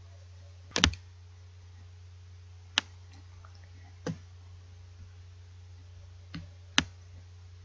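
Computer mouse button clicks: five sharp, separate clicks a second or more apart, the first a quick double, over a steady low hum.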